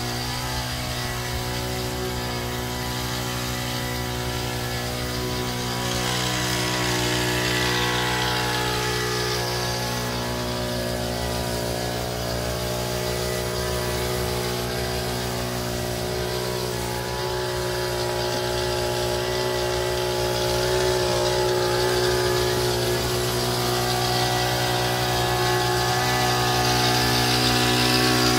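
Small petrol engine of a motorized backpack sprayer running steadily at constant speed, its level swelling slightly a few times.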